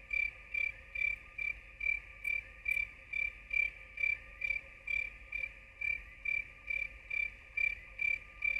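Cricket chirping in a steady, even rhythm, a little over two chirps a second, over a faint steady hum.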